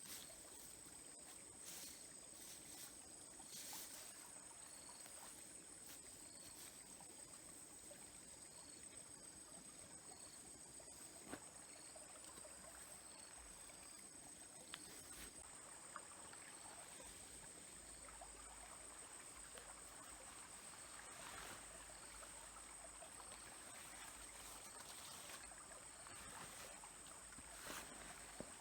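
Faint trickle of a small stream with a steady, high-pitched insect trill over it, and a few soft clicks.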